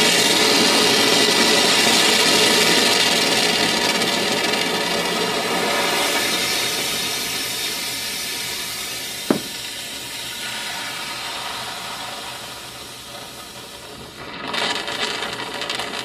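Hot water and steam hissing out of the open boiler drain of a Rocket Classic heat-exchange espresso machine into a steel sink, pushed out by the boiler's heat and slowly fading as the steam boiler empties. There is a single click about nine seconds in, and the flow turns rougher and uneven near the end.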